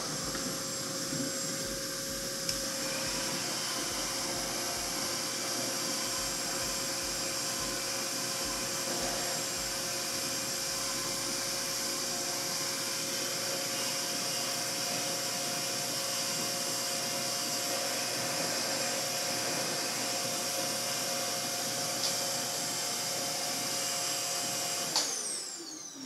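RevAir reverse hair dryer running, a steady rush of air with a steady hum as the wand sucks a section of wet hair dry. About 25 seconds in it is switched off and winds down with a falling whine.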